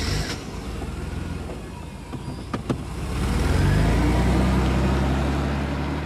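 Car engine starting and running, with two sharp clicks about two and a half seconds in, then revving up as the car pulls away about three seconds in and growing quieter near the end.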